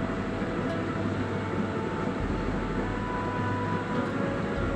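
Shallow river current flowing over stones: a steady rushing noise with a low rumble underneath.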